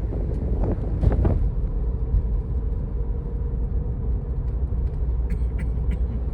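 Steady low rumble of a car driving, heard from inside the cabin, with a faint steady hum over it.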